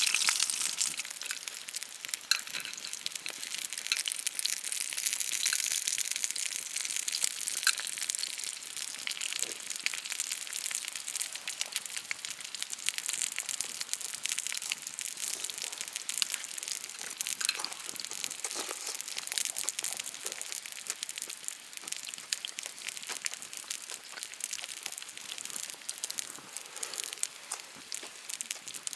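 Sirloin steak sizzling and spitting in a hot pan: a loud hiss for about the first second, then a thinner, steady crackle of fine pops.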